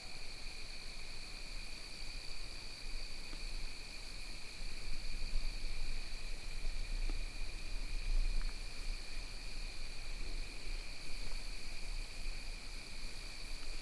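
Night insects chirring steadily at two high pitches in the woods, with a faint low rumble underneath.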